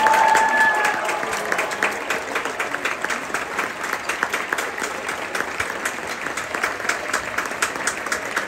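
A large theatre audience applauding, a dense patter of many hands clapping. A short held cheer rises above it in the first second.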